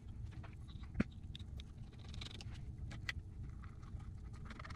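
Faint clicks and taps of small screws and a screwdriver being handled while a stepper motor is fitted to its mounting plate, with a sharper click about a second in, over a low steady hum.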